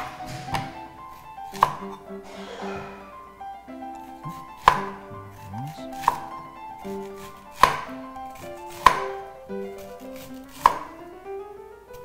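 Chef's knife slicing a red onion into rings on a wooden cutting board, each cut ending in a sharp knock of the blade on the board, about seven knocks spaced a second or two apart. Soft background music plays underneath.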